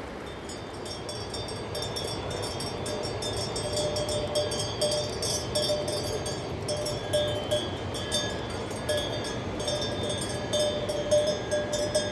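Metal bells clanking irregularly, many short strokes, over the steady rush of a river.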